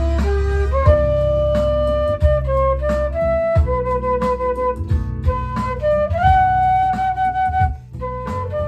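Instrumental music: a single flute-like melody line playing long held notes with short slides between some of them, over a steady bass and a drum beat.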